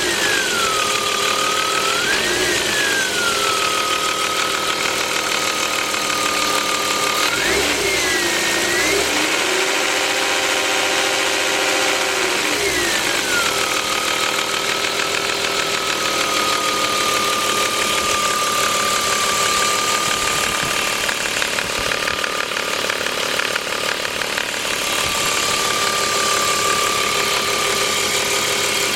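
BMW 325is engine idling with a steady high-pitched whine, blipped a few times in the first half so that the whine rises and falls with engine speed. The whine comes from a faulty remanufactured alternator.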